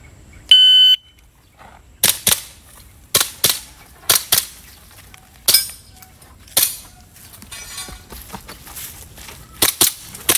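A shot timer's electronic start beep, held about half a second, then an airsoft pistol firing through a stage: sharp shots mostly in quick pairs, about a third of a second apart, with single shots and short pauses between strings.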